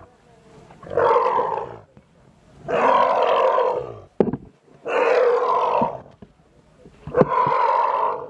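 Asian elephant calf calling loudly four times, each call about a second long and roughly two seconds apart, while held on ropes. A couple of short sharp clicks fall between the calls.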